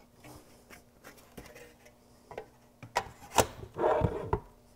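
Metal top cover of an Icom IC-7300 transceiver being handled and set back onto the chassis. Light clicks and taps, then a sharp click about three and a half seconds in, followed by a brief scraping slide and a few low thumps as the cover goes down onto the radio.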